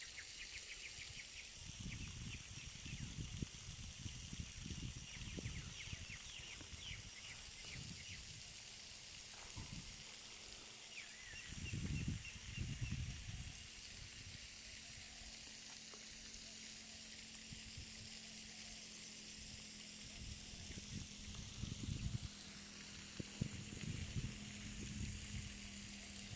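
Steady hiss of flowing water from a waterfall, with a few short high chirps near the start and again about six and eleven seconds in. Low rumbles of wind on the microphone come and go.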